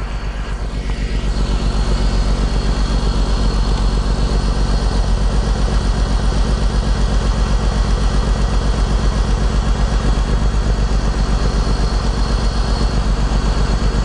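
BMW E46 engine idling with an even, regular pulse while single ignition coils are disconnected in a power balance test to find a misfiring cylinder. The cylinders tried here are still contributing.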